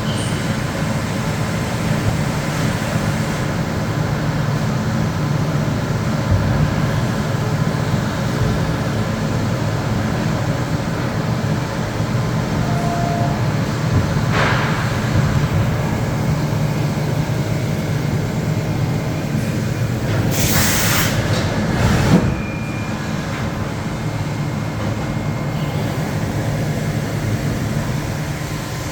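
Mazak HCN-5000 horizontal machining centre running with a steady mechanical hum and hiss. There is a short hissing blast about twenty seconds in and a single clunk a second or so later.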